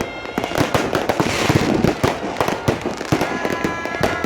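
Many fireworks bursting and crackling in rapid, overlapping succession, with a dense cluster of crackling about a second in and a few steady high tones near the end.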